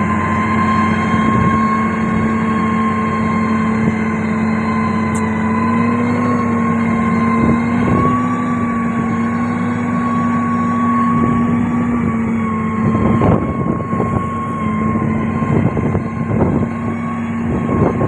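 SANY STG190C-8S motor grader's diesel engine running steadily under load, a constant drone with a higher whine over it that rises a little in pitch partway through, as the blade pushes clay and rock. In the second half, irregular knocks and crunches of stones and clods join in.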